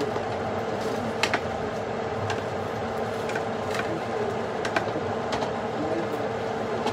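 Cooking on a stove: a steady hum and hiss with irregular sharp pops and clicks.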